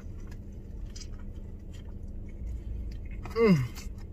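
A person chewing a mouthful of sandwich close to the microphone, with soft wet mouth clicks and smacks. About three and a half seconds in comes one short vocal sound of enjoyment that falls in pitch.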